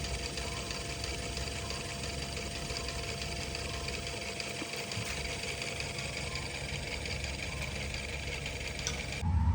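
LG refrigerator's condenser fan motor running with a steady, rough knocking noise: the motor is failing and turns slowly, which leaves the fridge cooling weakly. It cuts off about nine seconds in, and a louder low hum follows.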